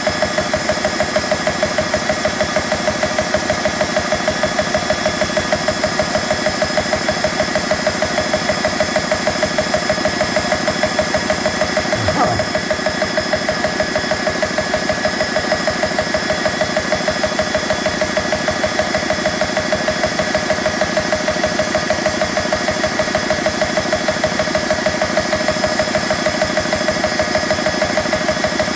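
BSA high-pressure air compressor running steadily, pumping in an even rapid pulse with a steady whine over it, as it charges an air rifle through its fill probe past 100 bar.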